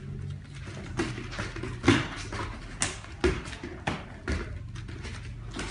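A run of sharp slaps and thuds about a second apart: karate punches and kicks (jab, reverse punch, roundhouse kick) landing on a sparring partner, with bare feet striking the foam mats.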